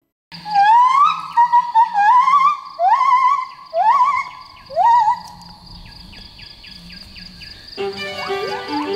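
A gibbon singing: a run of rising, wavering whoops that come shorter and steeper over the first five seconds, then stop. Soft music with held notes comes in near the end.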